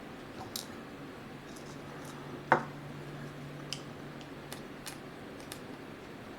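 Flat-tip screwdriver working the tiny screws of a laptop's LCD panel mount: scattered light metallic clicks, with one sharper knock about two and a half seconds in.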